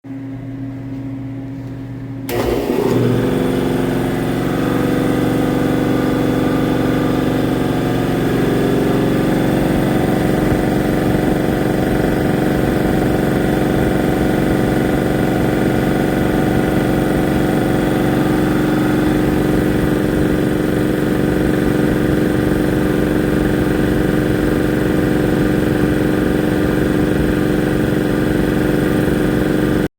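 80-gallon Ingersoll Rand air compressor: a low hum for about two seconds, then it starts up suddenly and settles into steady running.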